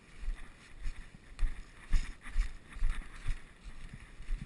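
Footsteps of a person walking, about two a second, each with a low thud on the microphone and a light rustle of ground cover.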